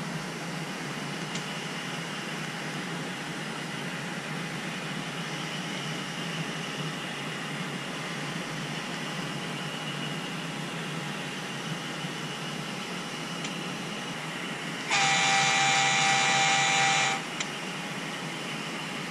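Model freight train rolling along the track with a steady running noise of wheels on rail, then about fifteen seconds in a model locomotive's horn sounds one long blast of about two seconds, the loudest sound here.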